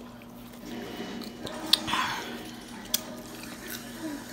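Biting into and chewing crisp fresh-cut fruit spears, with two sharp clicks a little over a second apart near the middle.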